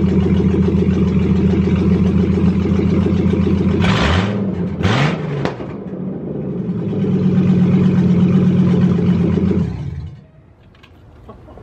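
2000 Chevy single cab pickup's engine running cold on true open headers with no mufflers: a steady idle, two quick revs with loud pops about four and five seconds in, then idling again until it is switched off near the end.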